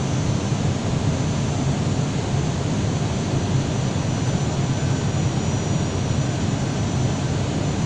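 Steady cockpit noise of an Airbus airliner on final approach: engine and airflow noise, with a faint steady high whine.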